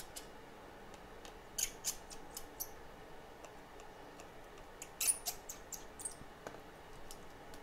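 Faint small clicks and ticks in two short clusters, one about one and a half seconds in and another around five seconds in, as flex-cable connectors are unclipped from an opened iPhone X's logic board.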